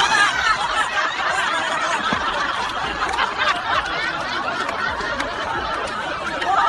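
People laughing together without a break, overlapping voices chuckling and snickering.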